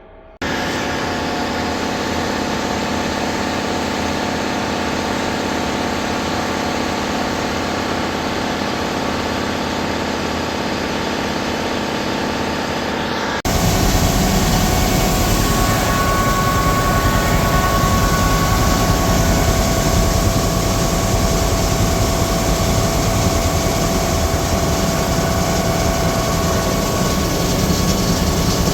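A heavy engine running steadily, with a constant hum of steady tones over a broad rushing noise. It cuts in suddenly and steps abruptly louder about halfway through.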